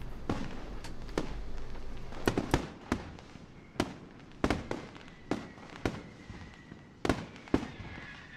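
Distant gunfire from several shooters on an outdoor firing line: a dozen or so sharp shots at irregular intervals, some with a short echo.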